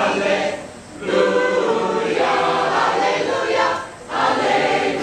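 Large mixed choir of men and women singing in long held phrases, with two short breaks for breath, about a second in and near four seconds.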